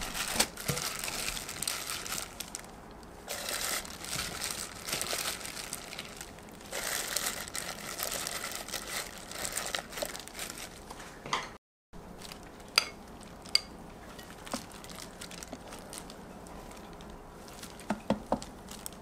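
A disposable plastic glove crinkling as a hand handles sauce-coated chicken drumettes and moves them into an air fryer basket. After a brief dropout about two-thirds in, only a few light taps and clicks, including a quick cluster near the end.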